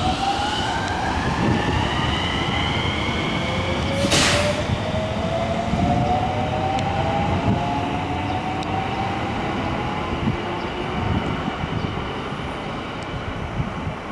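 Marine Liner electric multiple unit pulling away from a station: the traction motors' inverter whine climbs steadily in pitch as the train gathers speed, over a running rumble of wheels on rail. A short hiss comes about four seconds in.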